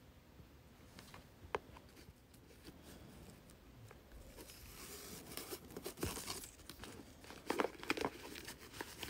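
Satin ribbon and a satin fabric pouch rustling as a ribbon bow is untied by hand, with a few light clicks. The handling is sparse at first and becomes a steady rustle about halfway through, loudest near the end.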